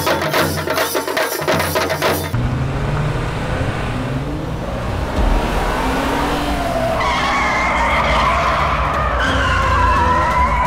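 Music with a driving beat for about two seconds, then cuts to vehicle engines running hard with tyres squealing and skidding, from a film car chase. A rising whine comes in near the end.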